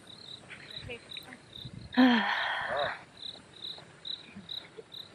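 Crickets chirping steadily, short high-pitched chirps about three times a second. About two seconds in, a person's voice cuts in loudly for about a second.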